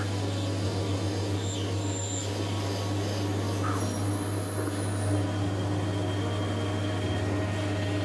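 Metal lathe running and turning a brass workpiece: a steady motor hum with the hiss of the tool cutting the brass.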